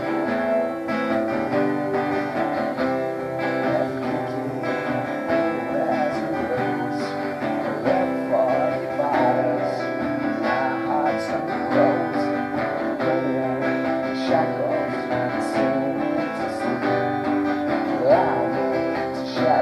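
Two acoustic guitars played together live, strummed and picked, as a duo.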